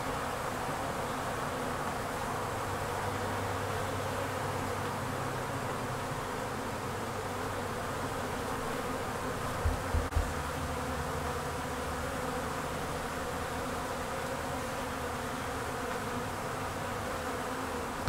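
Swarm of honey bees buzzing steadily as they fly about and crawl into a gap in the wall under a window, a swarm moving into the wall cavity. A few brief low thumps come about halfway through.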